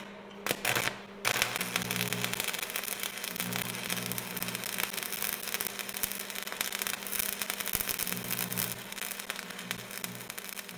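Crackling, hissing static over a low steady hum, starting after a few sharp clicks in the first second.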